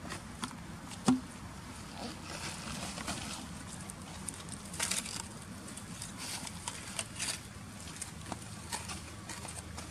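Dry leaf litter rustling and crackling in scattered light clicks as macaques move and handle the leaves, with one sharp knock about a second in.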